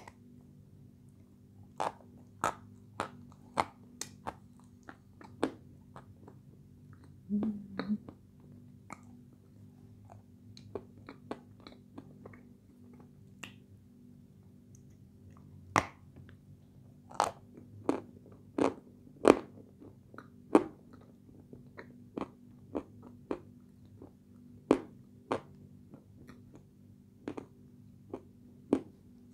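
Dry edible clay (Turkestan light) crunching as it is bitten and chewed close to the microphone: irregular sharp crunches, some in quick clusters, the loudest a little past the middle.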